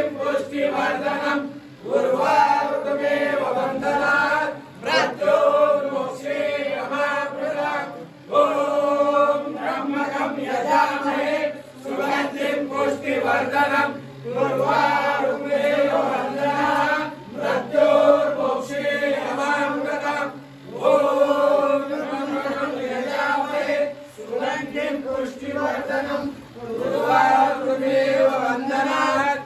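Men chanting Hindu mantras in steady phrases of a few seconds each, with brief breaks between them, the ritual chanting that accompanies water being offered over a Shiva lingam.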